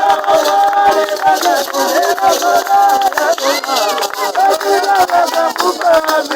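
A group of voices singing together in a church service, accompanied by frequent sharp rhythmic strokes such as hand rattles or claps.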